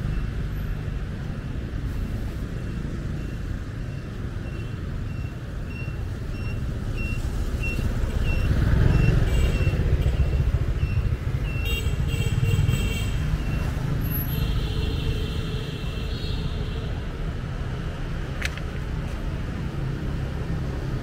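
Busy city street traffic: a steady rumble of passing motorbikes and cars that swells about halfway through as a vehicle goes by close. A short beep repeats about twice a second for several seconds, and later there are two longer horn-like tones.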